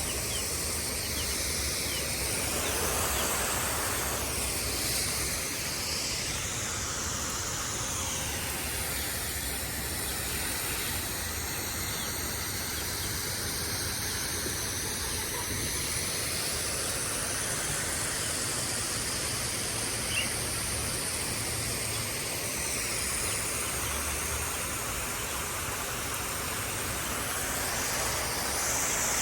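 Steady hiss of water spraying from a garden hose.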